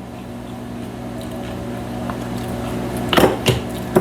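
Crunching on crisp microwave-made potato chips: three sharp crunches in the last second, over a steady low hum.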